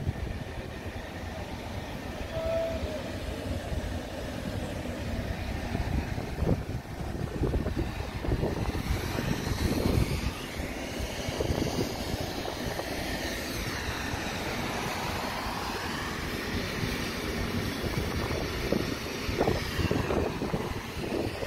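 Wind rumbling on a phone microphone outdoors, with a distant drone that swells and fades through the middle.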